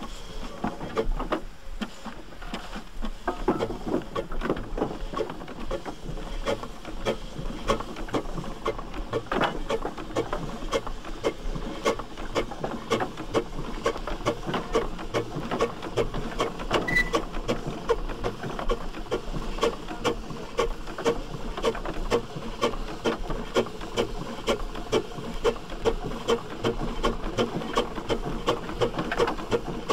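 1910 Davey Paxman agricultural steam traction engine running, its exhaust beating in an even, repeated chuff. The beats grow louder and quicker after the first few seconds.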